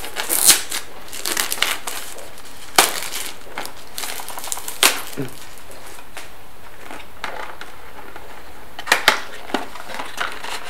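Cardboard box and plastic cartridge packaging being handled: scraping and rustling with a few sharp clicks and knocks, the loudest about half a second in, near three seconds in, and a quick pair about nine seconds in.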